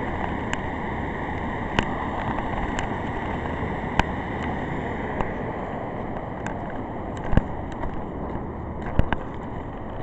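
Steady rush of a shallow stream tumbling over rocks, with several sharp clicks, bunched toward the end.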